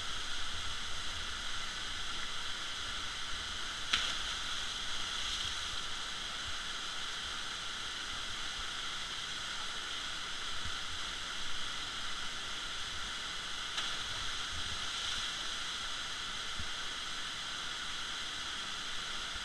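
Steady hiss of rushing water in a river gorge, with a single sharp click about four seconds in.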